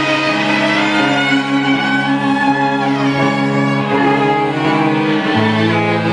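Violin and cello playing an instrumental passage in long held notes; the cello steps down to a lower note about five seconds in.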